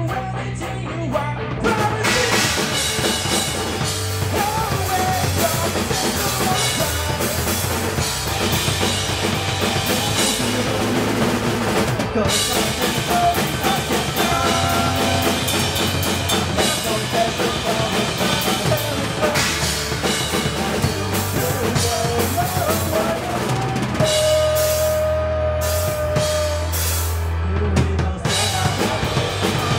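Live rock band playing: drum kit with bass drum and snare, over electric guitar and bass, loud and full. The cymbals and full band come in about two seconds in.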